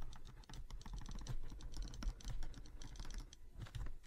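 Stylus tapping and scratching on a drawing tablet as words are handwritten: a fast, irregular run of faint clicks and ticks.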